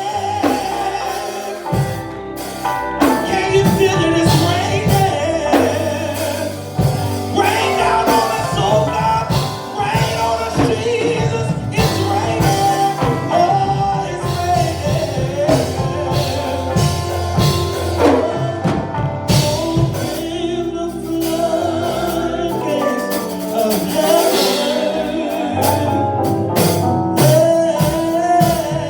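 Live gospel music with singing over bass, keyboard and drums.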